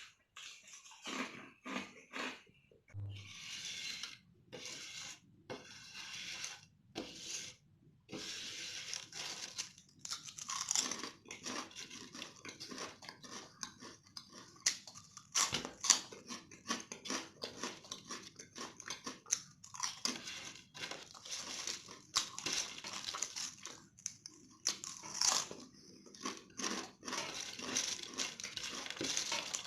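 Close-miked crunching and chewing of potato chips, with many irregular crisp crunches and short pauses between bites.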